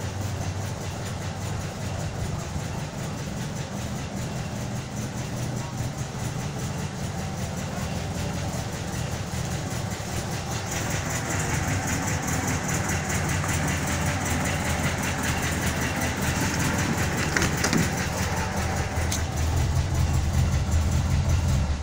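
Volkswagen T1 bus engine running steadily at idle, growing louder and more rattly about halfway through.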